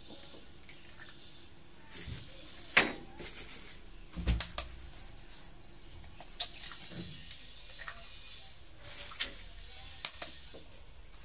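Eggs being cracked and broken open by hand over a glass bowl: a string of sharp shell cracks and taps every second or few.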